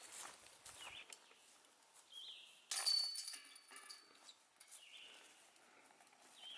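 A golf disc hits the metal chains of a disc golf basket about three seconds in: a sudden metallic clatter that rings briefly and fades. Birds chirp faintly in short calls before and after it.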